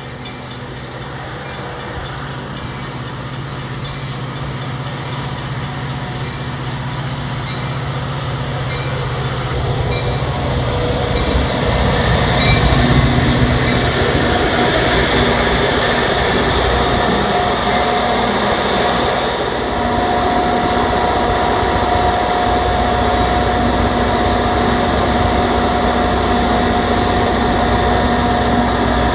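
Metra diesel commuter train pulling in, growing steadily louder for about twelve seconds. Its locomotive then runs steadily right alongside at a standstill, with a held whine entering about two-thirds of the way through.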